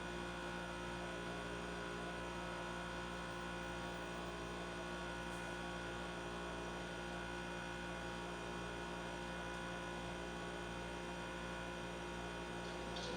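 Steady electrical mains hum with several constant tones, unchanging throughout, with no other sound.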